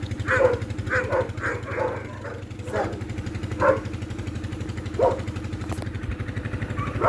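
A dog barking: a quick run of about five barks in the first two seconds, then single barks spaced a second or more apart. Under it runs a steady, pulsing low drone of an idling engine.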